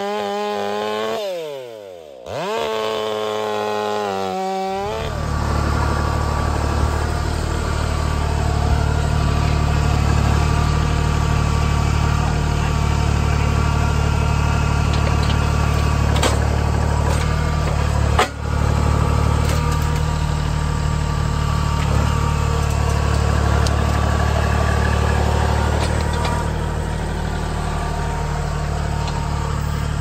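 A Stihl chainsaw running; its pitch falls, then climbs again. From about five seconds in, a compact Kubota tractor's diesel engine runs steadily at working speed while its grapple rips out shrub stumps.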